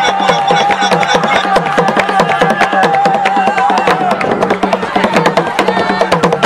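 Chewa Gule Wamkulu dance drums played in a fast, dense rhythm of sharp strokes. A long wavering high note is held over them until about four seconds in.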